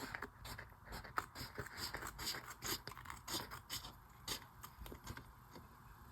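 Scissors snipping through a clear plastic sticker sheet: a faint, irregular run of short snips and scraping.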